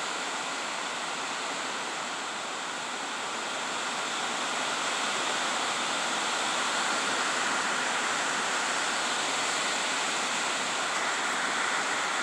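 Hard rain falling on an uninsulated tin roof, heard from inside under the roof as a steady, even hiss that grows a little louder about four seconds in.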